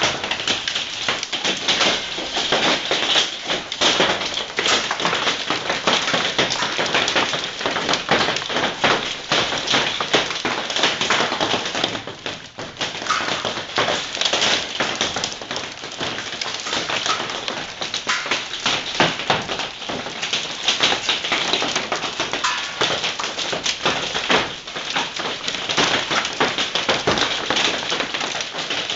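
Hailstones pelting down in a heavy hailstorm, a dense, continuous clatter of countless small impacts that eases briefly about twelve seconds in.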